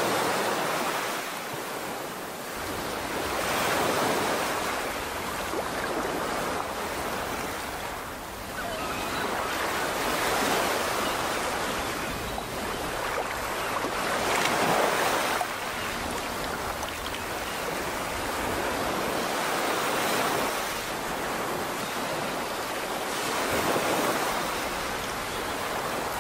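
Ocean surf: waves washing in, swelling and falling back every few seconds.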